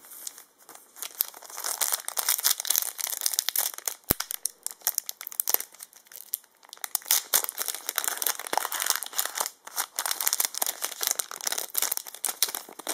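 Foil trading-card booster pack wrapper crinkling and tearing as it is worked open by hand, a dense, irregular crackle with one sharp click about four seconds in.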